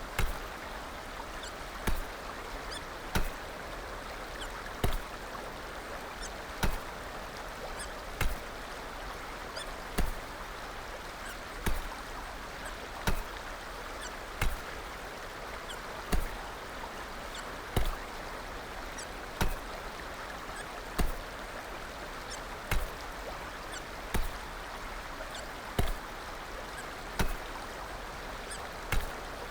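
Hiccups coming at an even pace, about one every second and a half, each a short sharp sound over a steady background hiss.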